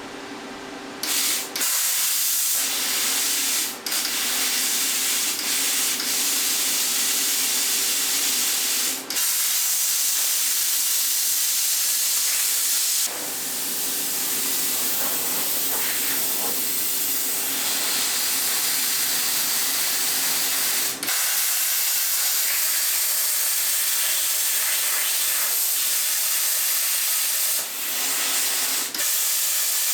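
Plasma cutter hissing steadily as it cuts 10-gauge stainless steel sheet. The hiss starts about a second in and has a few brief breaks. The cutting tip is worn out, so the cut takes more effort to get through.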